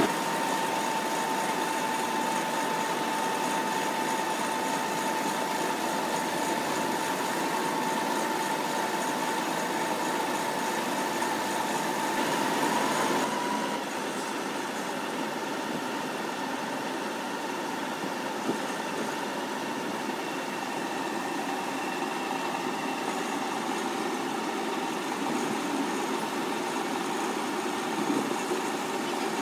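Tractor engine running steadily while a hydraulic tipping trailer raises its body, with a steady high whine throughout. About thirteen seconds in, the sound shifts slightly and becomes a little quieter.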